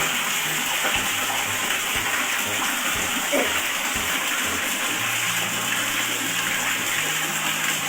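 Water running steadily, as from an open tap, with a few faint clicks.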